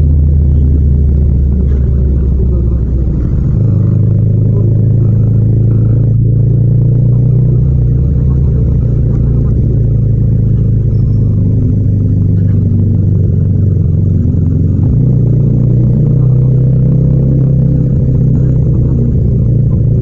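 Yamaha MT-07's 689 cc parallel-twin engine running at fairly steady revs while the bike rides through traffic, its low drone shifting in pitch about 3.5 seconds in and again about 15 seconds in.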